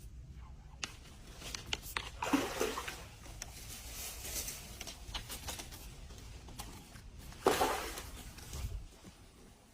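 Water splashing in two short bursts, about two seconds in and again about seven and a half seconds in, with scattered clicks and knocks between.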